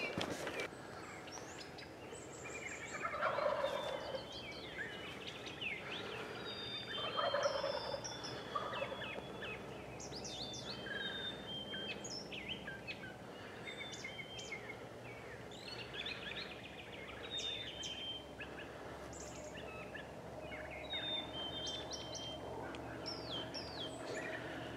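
A wild turkey gobbling twice, a few seconds apart, over songbirds chirping and singing.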